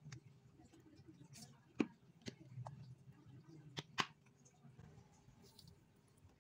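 Seafood broth simmering in a wok with a low bubbling as sauces are added; four sharp clicks stand out, two about two seconds in and two about four seconds in.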